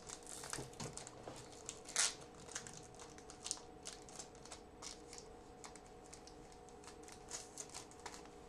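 Rustling and crinkling of a trading-card pack wrapper and cards being handled, with many small irregular clicks and one louder crackle about two seconds in. A faint steady hum runs underneath.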